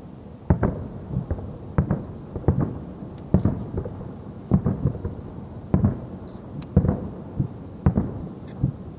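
Fireworks display: aerial shells bursting in a string of low, dull booms, about a dozen in nine seconds at uneven spacing, each trailing off in a short echo.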